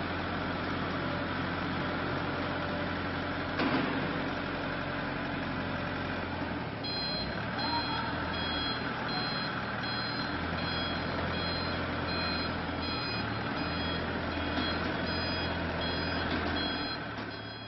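Diesel forklift engine running steadily, with a single knock about four seconds in. From about seven seconds in, its reversing alarm beeps repeatedly.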